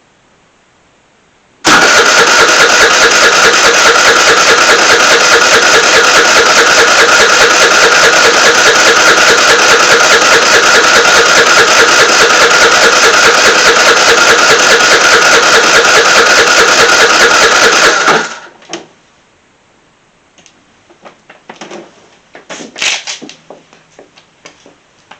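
A scooter's engine bursts into life about two seconds in and runs loud and steady at idle, with no revving, for about sixteen seconds. Then it cuts out abruptly as the scooter stalls. A few light clicks and knocks follow.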